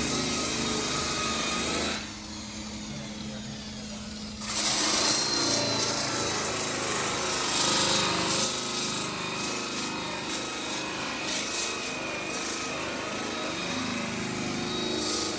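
Electric power pusher (a battery-powered car mover) running with a steady motor whine as it pushes a car. About two seconds in it drops quieter for a couple of seconds, then resumes.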